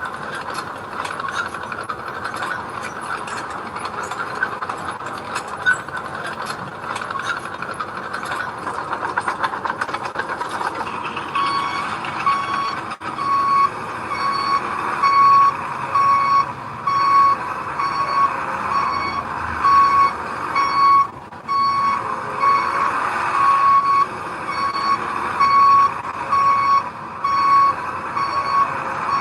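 Heavy diesel earth-moving machinery running with a dense rattling clatter. About a third of the way in, a construction vehicle's reversing alarm starts beeping steadily, about once a second, as the machine backs up.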